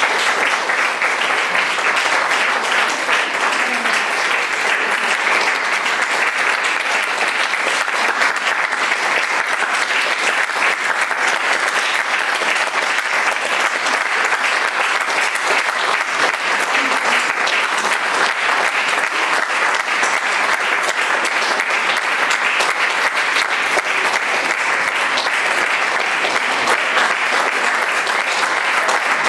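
Audience applauding steadily as the cast takes its curtain call.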